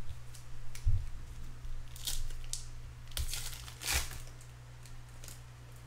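Trading card packs and cards being handled: short bursts of wrapper crinkling and tearing, with a few soft thumps as cards are set down.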